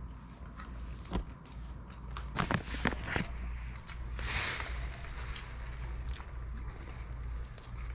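Steady low hum of a quiet room, with a few sharp clicks between about two and a half and three seconds in and a brief rustle just after four seconds.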